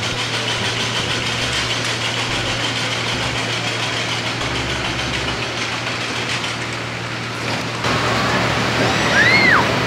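Moser Rides drop-tower ride's machinery running with a steady low hum and hiss as the seat carriage climbs the tower. Near the end a short high squeal rises and falls in pitch.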